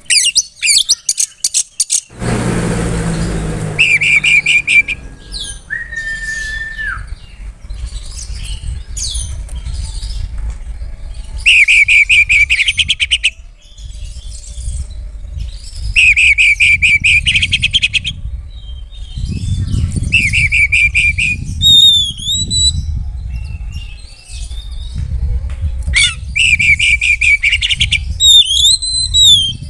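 Oriental magpie-robin singing in bursts of rapid, repeated trilled notes, one to two seconds long, mixed with clear slurred whistles that arch down and back up. A brief rushing noise comes about two seconds in, and a low rumble runs underneath.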